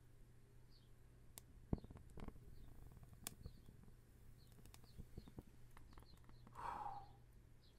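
A Redheads wooden match burning down, with faint scattered crackles and a sharper click about a second and a half in. Near the end comes a short breathy puff as the match is blown out. Faint bird chirps sound in the background.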